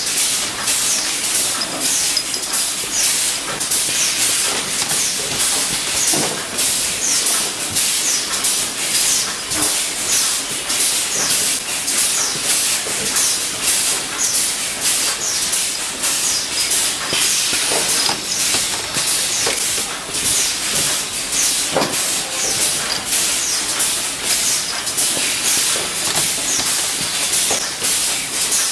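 Pneumatic machinery for gas-spring bed lift supports releasing compressed air in quick, regular hisses, about two a second, with a few metal clinks from parts being handled.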